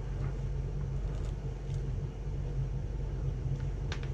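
Steady low background hum with a few faint light clicks from small parts being handled.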